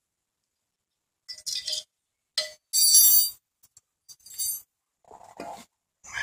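Loose steel strut parts clinking against each other and the concrete floor as they are handled: several short clinks spread over a few seconds, the loudest a ringing metallic clink about three seconds in.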